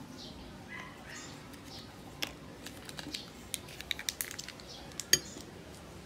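Light clicks and taps from handling a spice sachet and a ceramic bowl, bunched in the middle, with one sharper knock about five seconds in.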